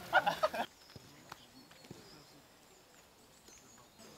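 Men's voices and chuckling that cut off abruptly under a second in, followed by faint outdoor quiet with small birds chirping high and thin, and a few soft knocks.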